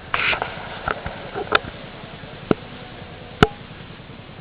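A short rustle, then four sharp knocks or clicks at uneven intervals, the last the loudest, over a steady low background noise.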